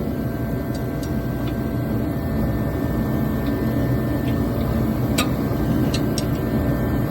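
Steady droning machine noise with a faint even hum under it, and a few light metallic clicks of a wrench being worked onto a bolt about five and six seconds in.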